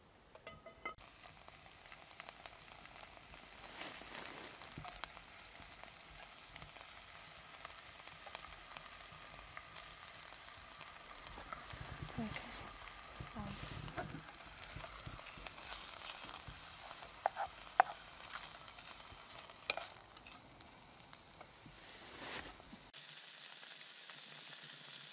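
Oil sizzling in a frying pan over a campfire: a steady frying hiss. Two sharp clicks, about two seconds apart, a little past the middle are the loudest sounds.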